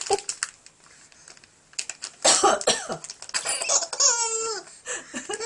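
An adult coughs several times in rough bursts, and about four seconds in a seven-month-old baby answers with a high, wavering giggle.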